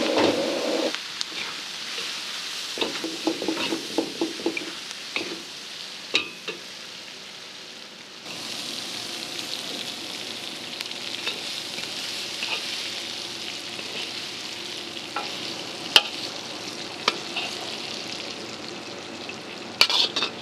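Flying fish and green chilies sizzling in hot oil in a wok while a metal spatula scrapes and clinks against the pan. A quick run of clinks comes in the first few seconds, then a steady sizzle with only an occasional clink.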